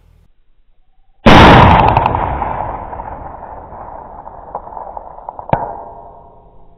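A single loud, sudden gunshot-like blast about a second in, ringing and dying away slowly over about five seconds, with a second sharp crack near the end.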